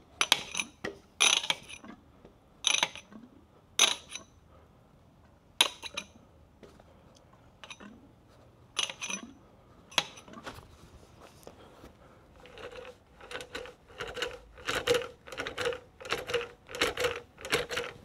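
Motorcycle front fork being bled after an oil change. In the first half, sharp metallic clinks with a high ringing tail come a second or two apart. From about twelve seconds in, the fork is pumped about a dozen times, roughly two strokes a second, each stroke with a squelch of fresh fork oil sloshing through the cartridge to push out the air.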